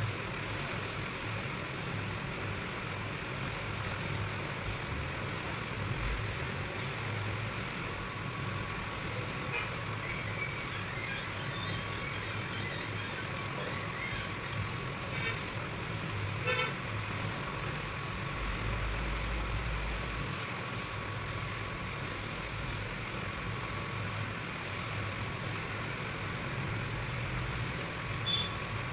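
Steady background noise with a low hum, like street traffic ambience, with a few faint short high toots partway through.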